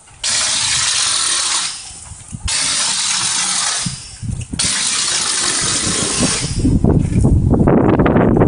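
Handheld compressed-air mortar projector gun spraying chapisco onto a concrete-block wall: a loud hiss of air and spattering slurry in three bursts, each a second and a half to two seconds long with short pauses between. Near the end the sound changes to a rougher, lower rushing noise.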